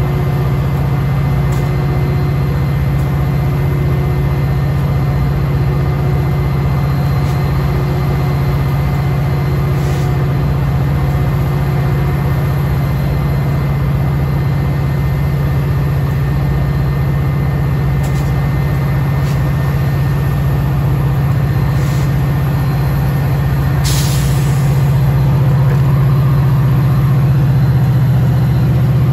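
Diesel commuter locomotive running steadily with a low hum while the train stands at the platform. About 24 seconds in there is a short hiss of air as the brakes release, and the engine note then rises slightly as the train starts to pull away.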